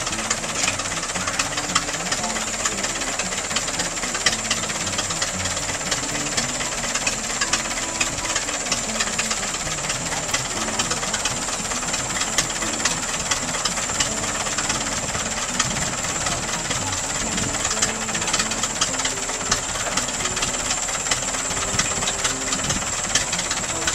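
1919 Fordson tractor's four-cylinder engine running at idle: a steady, rapid knocking clatter that holds the same level throughout.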